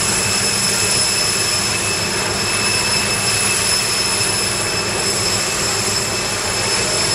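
Steady jet turbine noise on an airport apron: an even roar with a high-pitched whine held at a constant pitch.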